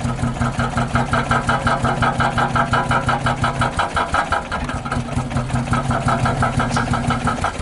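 Fiat Marea Weekend's 16-valve engine cranking on the starter without catching: an even chug of about five compression pulses a second over the starter motor's hum. The low hum fades for about a second near the middle while the cranking goes on. The engine is failing to start.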